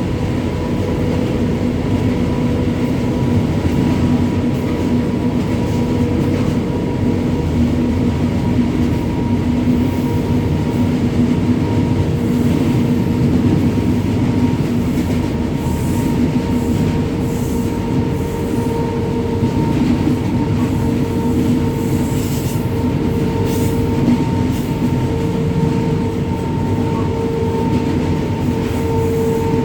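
Indian Railways WAG-9 three-phase electric locomotive running at speed: a steady electrical hum over a constant rumble of wheels on the track.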